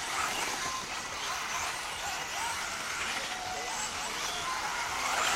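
Electric-powered 1/10 off-road RC buggies racing: high-pitched motor whines that rise and fall with the throttle, over a steady hiss of tyres on the track.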